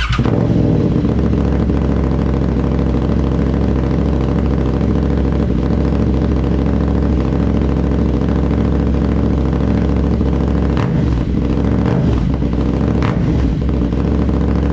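KTM 790 Duke's parallel-twin engine starting up and idling steadily through a freshly fitted Austin Racing RS22 titanium aftermarket exhaust; the engine catches right at the beginning and the sound stays loud and even throughout.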